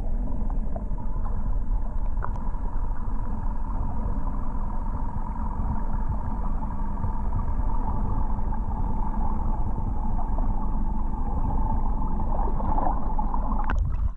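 Muffled, steady underwater rumble with a constant hum, picked up by a camera held below the river surface. A short splash comes near the end as the camera breaks the surface.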